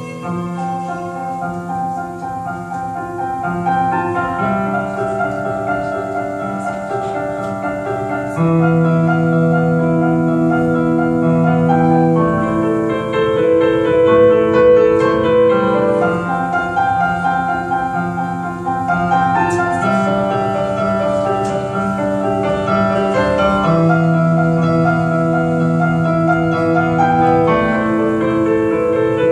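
Stage keyboard playing a slow piece in held piano chords, the harmony changing every few seconds and growing louder about eight seconds in.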